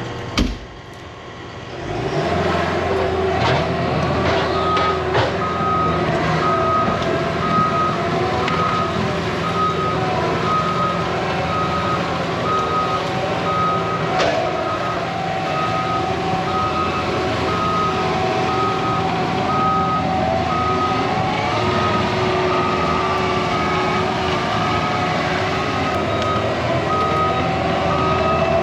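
Engine of a piece of work machinery running loud and steady while its backup alarm beeps at an even pace, about once a second, as it reverses. The engine comes up about two seconds in and the beeping starts a few seconds later.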